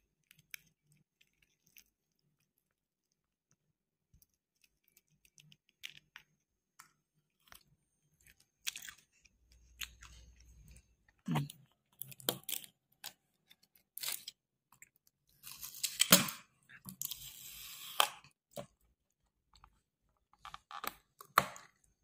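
A hinged plastic sauce cup being opened: sharp clicks and taps as a utility-knife blade cuts the sticker sealing it, then a longer stretch of plastic crackling about two-thirds of the way through as the lid is prised open, and a few more clicks near the end.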